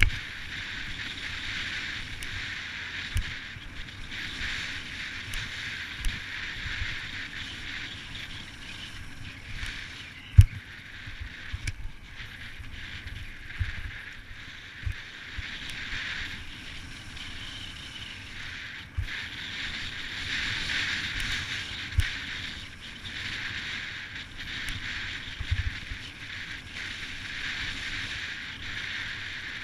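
Mountain bike riding down a dirt trail, heard from a camera mounted on the rider or bike: a steady rush of tyre and wind noise with sharp knocks and rattles as the bike hits bumps, the loudest about ten seconds in.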